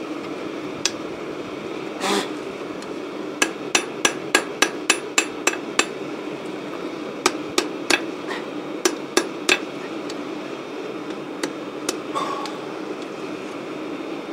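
Ball-peen hammer striking a small piece of steel held in tongs on a makeshift block anvil, cupping a cut-off spanner end into a spoon. There are two separate blows, then two runs of sharp metallic strikes at about three a second with a short pause between them, and a few lighter taps near the end, over a steady background hum.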